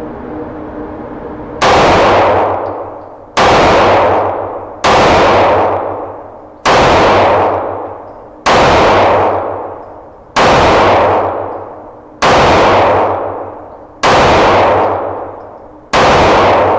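Springfield Armory XD-E 9mm pistol fired nine times at a slow, even pace, about one shot every two seconds. Each shot rings out in a long echo in the indoor shooting range.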